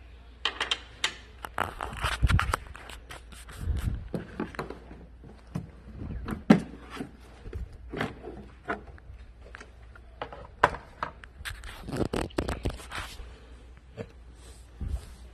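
Plastic engine-bay covers being unclipped and handled by hand: irregular clicks, snaps and scraping, the sharpest snap near the middle and a dense cluster about twelve seconds in.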